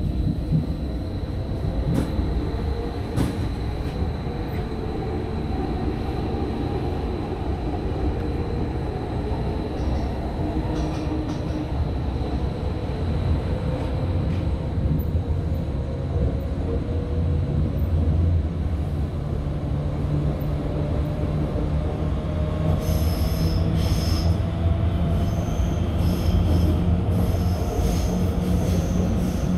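Electric metro train running on surface track, heard from inside the car: a steady low rumble of wheels on the rails with a faint whine that slowly glides up and down. High-pitched wheel squeal comes in over the last several seconds.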